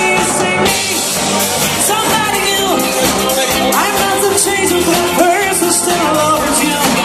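Pop-rock music with a singing voice over bass and drums.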